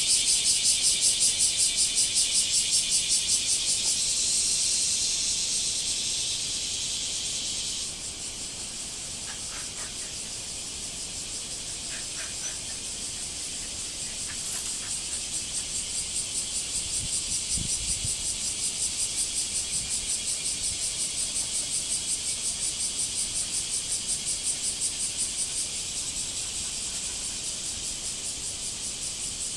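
Cicadas singing in a continuous, fast-pulsing buzz. The loudest one stops about eight seconds in, leaving a quieter chorus that swells again from about fifteen seconds in.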